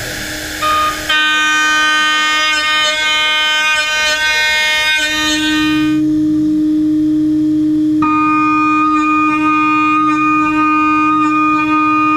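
High-speed milling spindle of a gantry milling machine cutting carbon-fibre composite (CFRP): a steady, high-pitched whine with many overtones. The upper overtones drop away for about two seconds midway, leaving the spindle's lower tone, then come back.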